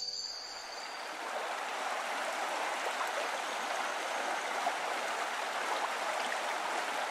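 Steady rush of flowing river water, fading in over the first second as the last notes of music die away.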